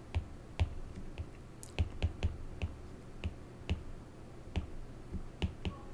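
Stylus tip tapping and clicking on a tablet's glass screen during handwriting: soft, sharp clicks at an irregular pace of about three a second.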